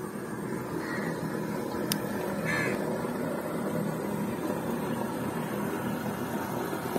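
Steady rushing of water flowing through a narrow channel into a fish trap. A crow caws twice in the background, about one and two and a half seconds in.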